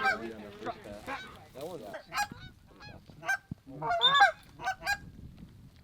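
Geese honking: a string of short, uneven honks and clucks, loudest about two seconds and four seconds in.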